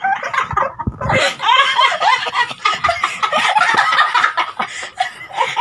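Women laughing hard together, with cackles and shrieks of laughter.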